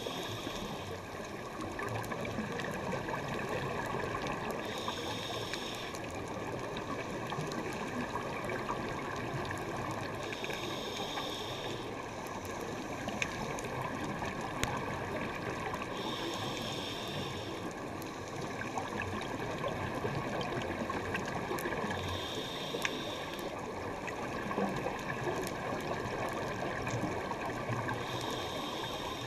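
Underwater sound of a scuba dive picked up through a GoPro housing: a steady rush of water and bubbles, with a short hiss from the diver's regulator about every six seconds, in time with the breathing.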